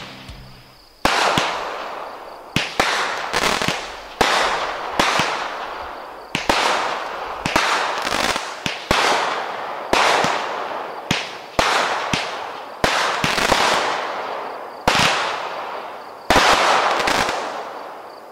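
A Legend Fireworks 'Hungry' 200 gram consumer cake firing shot after shot, roughly one a second, starting about a second in. Each shot is a sharp report followed by a fading hiss and crackle as its strobe and time-rain effects burn. Near the end two shots come close together.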